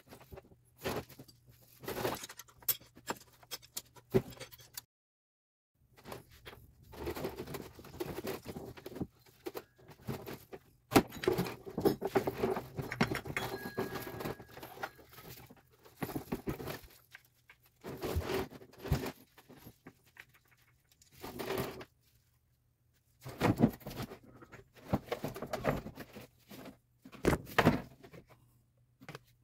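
Intermittent metallic clinks, clicks and short rattles of hand tools, bolts and parts being handled during engine-bay disassembly on a truck with its engine off.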